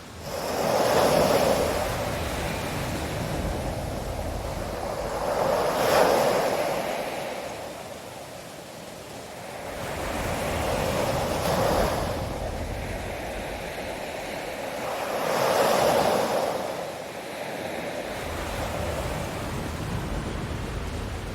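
Ocean waves breaking on a shore, one surge of surf about every five seconds, four in all, each swelling and then washing away.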